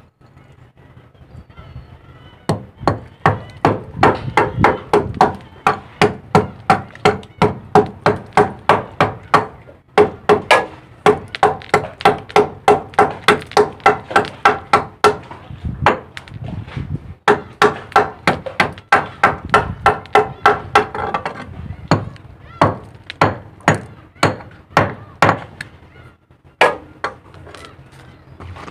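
Hammer striking rusty steel in quick, even blows, about three a second, each with a short metallic ring. The blows come in runs with brief pauses and thin out to scattered strikes near the end.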